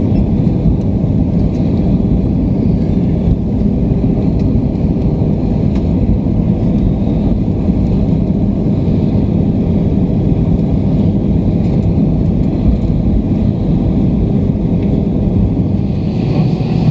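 Steady loud rumble inside the cabin of an Airbus A320 rolling along the runway after landing, engine and wheel noise carried through the fuselage.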